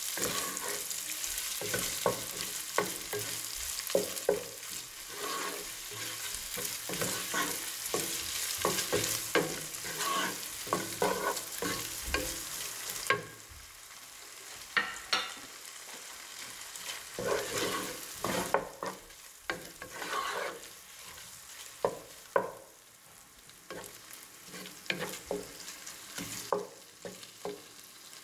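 Diced ham sizzling in butter and oil, stirred with a wooden spoon that clicks and scrapes against the pot many times. The sizzle is loudest for the first half and drops about halfway through, quieter again later.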